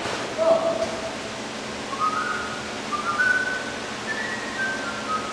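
A person whistling a short tune: one held note, then a string of brief notes that climb and then fall.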